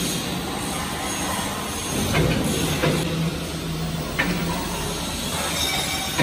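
Heavy steel pipe rumbling on the steel rollers of a motorised pipe turning rotator. A low motor hum comes and goes, with a few sharp metal knocks.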